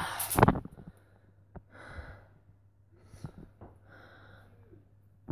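A loud sigh breathed out close to the microphone, then a few softer breaths over a faint steady low hum.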